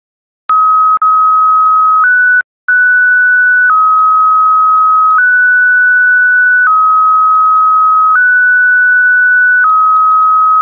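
Computer-generated JT65 digital-mode audio for a 144 MHz moonbounce transmission: a steady beep that switches between two pitches about every one and a half seconds, the alternating pattern of a JT65 shorthand message. It starts with clicks about half a second in and drops out briefly about two and a half seconds in.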